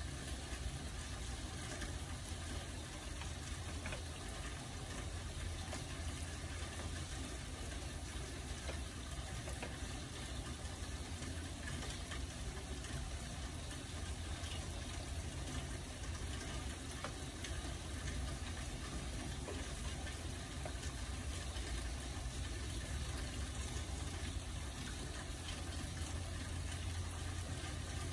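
Steady rain falling: an even hiss with scattered faint ticks of drops and a low rumble underneath.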